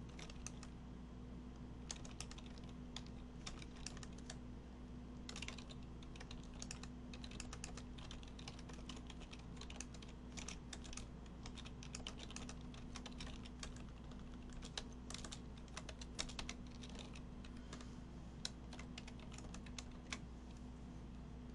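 Typing on a computer keyboard: quick keystrokes in irregular runs separated by short pauses, over a faint steady hum.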